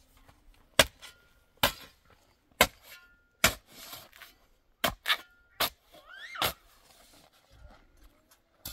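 A series of sharp knocks, about eight, coming roughly once a second and sometimes faster, a few followed by a short ringing tone. A brief rising squeak comes about six seconds in.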